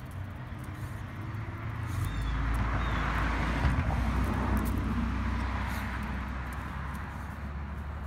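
A vehicle passing by: its noise swells over a couple of seconds and slowly fades, over a steady low rumble.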